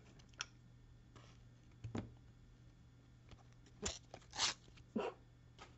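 Pokémon trading cards and their pack wrapping being handled: a series of short, quiet rustles and crinkles, the longest just past the middle.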